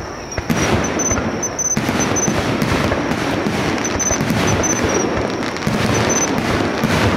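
Aerial firework shells bursting in quick succession: booms and dense crackling that build into a near-continuous barrage about two seconds in.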